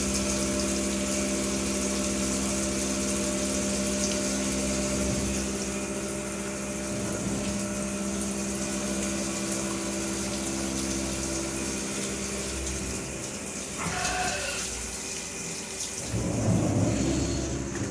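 Haas CNC milling machine running a cut with flood coolant spraying: a steady machine hum with several fixed tones over a watery hiss. It gets louder and rougher near the end.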